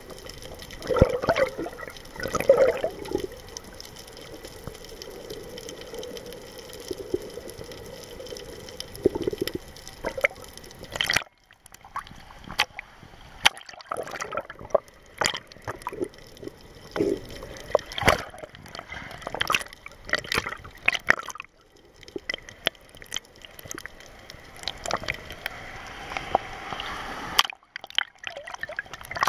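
Water gurgling and sloshing heard from under the surface as snorkelers swim, with scattered sharp knocks and clicks and two sudden brief cuts in the sound.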